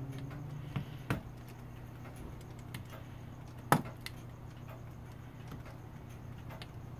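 Small, sharp, irregular metallic clicks of fingers and tools on a brass clock movement as a retaining C-clip is worked off, the loudest about halfway through, over a steady low hum.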